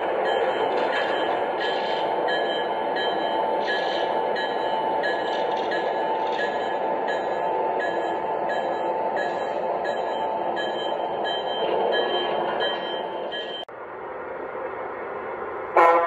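Lionel Vision Line GG1 O-scale electric locomotive running on three-rail track: a steady rolling rumble with regular clicking, about two clicks a second. The sound changes abruptly near the end, and a short, loud pitched sound begins just before it ends.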